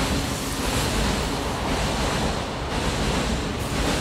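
Interior of a 1970s JNR Yokosuka Line electric train on the move: a steady rumble of wheels on rail and running noise that swells and eases slightly.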